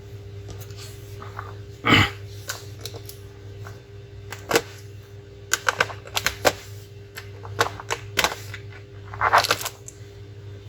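Irregular sharp plastic clicks and snaps from a Dell Inspiron 3521 laptop's case and keyboard being pried and handled, the loudest about two seconds in, over a steady low hum.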